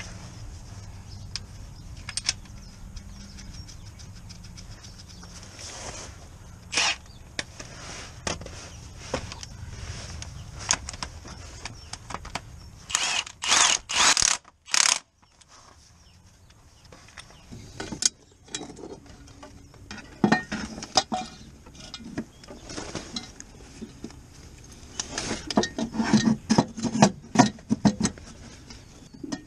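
Milwaukee M18 cordless power tool run on a bolt in several short loud bursts about halfway through, among scattered clinks and knocks of tools and metal parts, with a quick run of rattling bursts near the end.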